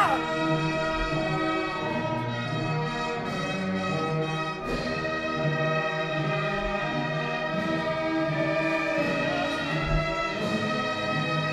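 Orchestral music with long held chords, brass among them.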